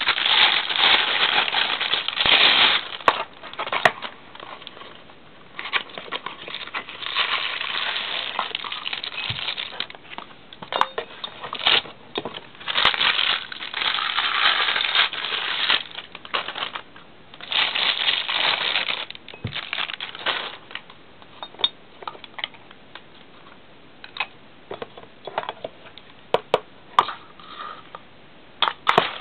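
Plastic bags and packaging crinkling and rustling in long stretches as the lamp's parts are unwrapped, then scattered light clicks and knocks as the parts are handled and fitted together.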